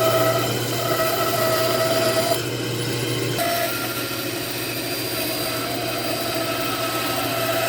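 Woodworking power tool's electric motor running steadily with a constant hum and whine. The whine breaks off for about a second some two and a half seconds in, then resumes.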